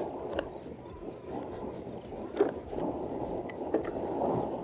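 Hardtail mountain e-bike rolling over a grass bridleway: a steady low rumble of tyres and wind on the microphone, with a few sharp clicks and knocks from the bike.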